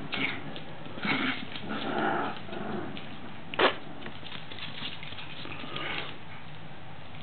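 Pomeranian dogs and puppies at play, with a few short dog vocal sounds about one to two seconds in and one sharp, sudden sound about three and a half seconds in.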